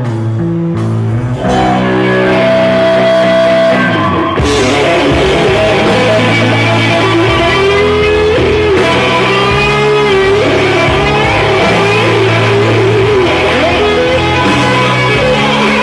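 Live rock band playing an instrumental passage: guitar notes alone at first, then the full band with drums comes in about four seconds in, under a lead melody that bends in pitch.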